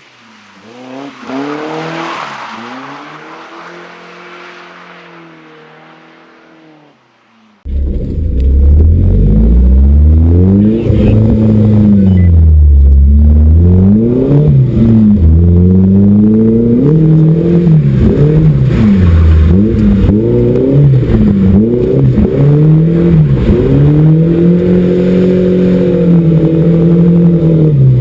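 A Volvo drift car's engine revs through a drift and fades away, with a hiss of tyres on wet road. About seven and a half seconds in it cuts abruptly to a much louder, close-up recording of the same engine revving hard up and down over and over as it is held in a slide, with a thin high tone on top.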